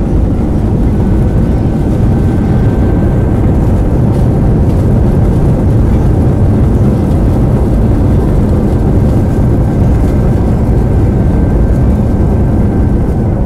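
Boeing 777-300ER's GE90-115B jet engines and rushing air heard inside the cabin as the airliner speeds along the runway: a loud, steady rumble with a faint high whine held above it.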